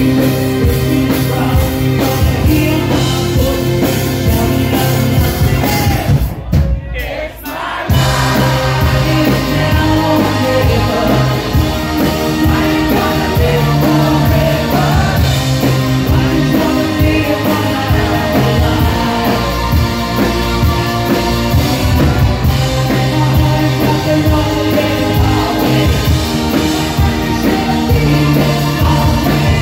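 Live rock band playing with a male singer, loud through the PA. The music drops out almost entirely about six seconds in and comes back in under two seconds later.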